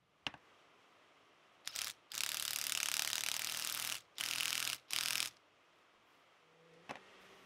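A hand-held driver tightening the screws that hold the end bell onto an electric bench grinder motor. A click comes first, then four bursts of rapid rattling from the tool, the longest about two seconds, and a single knock near the end.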